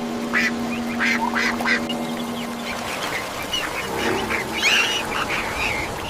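Ducks quacking in a string of short calls, over a steady low hum that fades out a little under halfway through.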